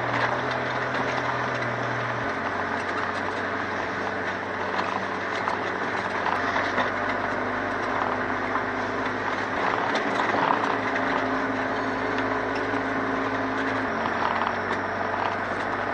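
Ford Transit camper van's engine running while driving, with road noise and small rattles. The engine note drops about two seconds in and changes again near the end.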